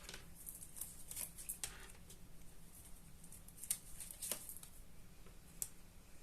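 Faint rustles and light taps of tarot cards being handled and laid out, a few scattered soft clicks.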